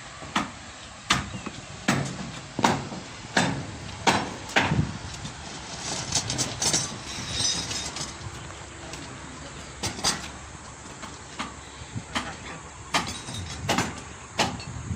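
Irregular hammer knocks on a building site, a sharp strike every half second to second or so. About halfway through there is a burst of scraping hiss, all over a steady low rumble.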